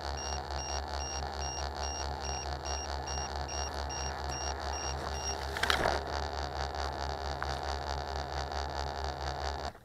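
Q450 quadcopter's electric motors running on while the craft lies tipped over in the grass, a steady pulsing whirr with a repeated high beep over it for the first half. There is a loud knock about six seconds in, and the motors cut out suddenly at the very end.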